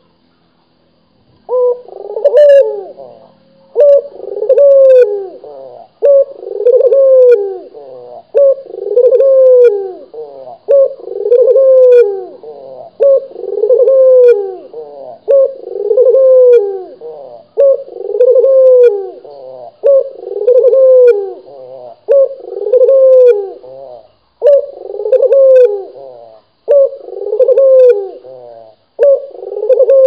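A caged puter, the domestic ringneck or Barbary dove, cooing loudly and close, its rolling coo phrase repeated over and over at about one every two seconds, beginning about a second and a half in.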